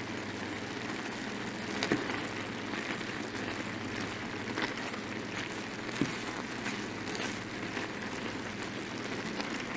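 Wooden spatula stirring pasta through a simmering cream sauce in an enameled cast-iron skillet: a steady bubbling sizzle, with a few sharp knocks of the spatula against the pan.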